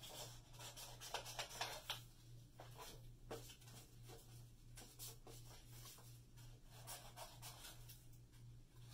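Scissors snipping through construction paper, with the paper rustling as it is handled; faint, with the loudest cuts about one to two seconds in.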